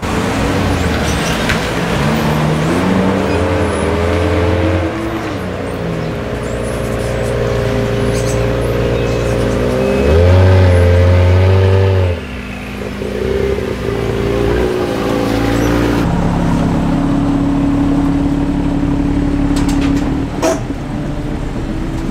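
BMW F32 4 Series engine as the car pulls into the driveway, revving up and down through low gears and loudest about halfway through, then settling to a steady idle. A car door clunks near the end.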